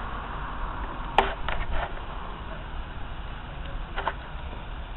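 A slow-moving train's coach rolling past, its wheels giving a few sharp clicks over rail joints, a cluster about a second in and one more near the end, over a low rumble.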